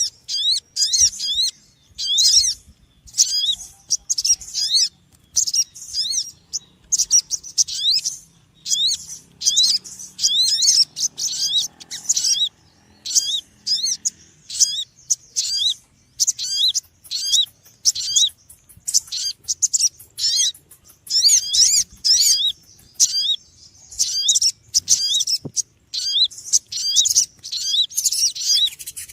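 Small birds chirping noisily: short bursts of rapid, high, sweeping chirps that repeat again and again.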